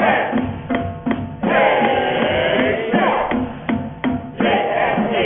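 Marching band playing a school fight song: drumline strokes on snare and tenor drums at a steady beat, with brass and woodwinds (trombone, mellophone, saxophone, clarinet, flute) holding chords through the middle before the drums come back to the fore near the end.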